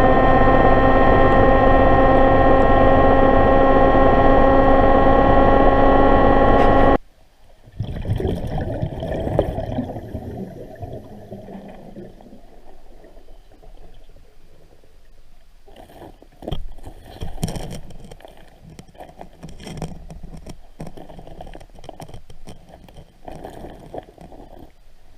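An engine running steadily, stopping abruptly about seven seconds in. After it come quieter, irregular knocks and scrapes, with a few sharper knocks around the middle.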